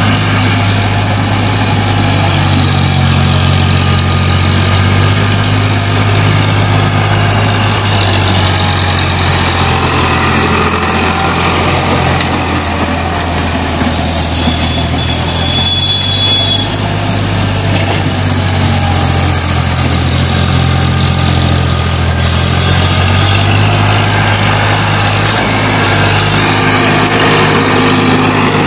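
Eicher 551 tractor's three-cylinder diesel engine running hard under load while pulling a tillage implement through dry soil. The engine note sinks somewhat through the middle and picks up again near the end.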